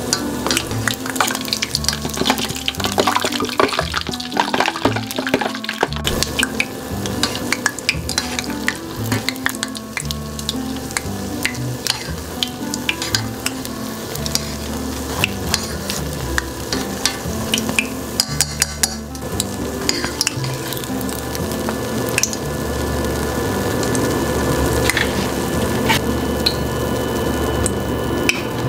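Beignet dough deep-frying in hot oil in a small stainless steel pot: a steady sizzle and crackle of bubbling oil, with wooden chopsticks clicking against the dough and the pot as the pieces are turned.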